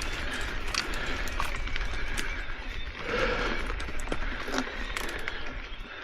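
Ride noise from an Ibis Oso e-mountain bike: tyres rolling on a dirt trail, with scattered clicks and rattles from the bike and a steady low rumble of wind on the microphone.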